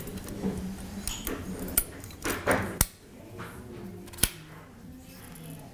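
Small metal parts under the needle plate and the slide plate of an industrial sewing machine being handled: light scrapes and several sharp clicks, the last a little after four seconds in as the slide plate is pushed back toward closed.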